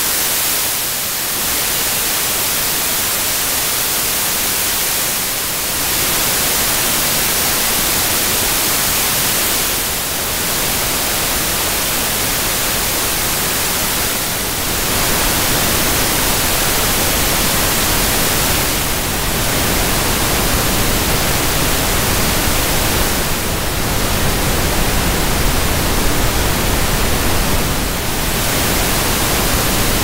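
Synthesised noise changing in steps from white noise to pink noise: about every four to five seconds the level dips briefly and the hiss comes back with less treble and more rumble. It ends as pink noise.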